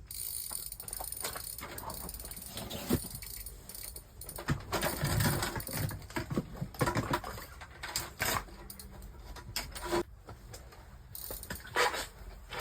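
A fishing reel being cranked during the fight with a sturgeon, giving irregular ratchet-like clicking with knocks and handling noise.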